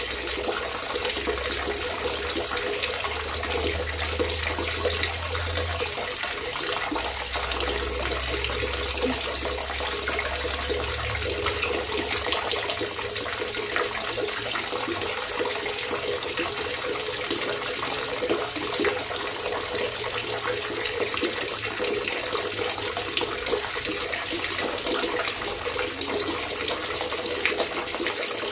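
Running water gurgling and trickling steadily, with a faint low rumble underneath for roughly the first twelve seconds.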